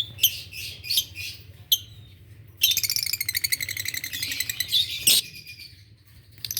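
Fischer's lovebirds chirping: a few short high chirps, then, about two and a half seconds in, a fast, dense run of chattering that lasts a few seconds before thinning out to scattered chirps. A sharp click sounds near the end of the chattering.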